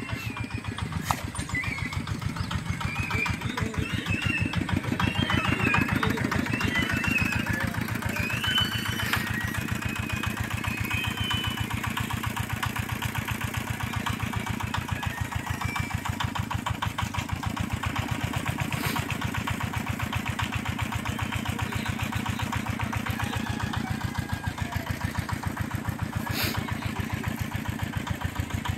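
An engine idling steadily off-screen, its firing an even rapid beat that does not change.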